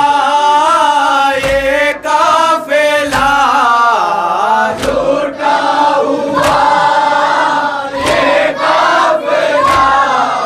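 Group of young men singing an Urdu noha (mourning lament) in unison into a microphone. Low thumps come about every second and a half from hands striking chests (matam) in time with the recitation.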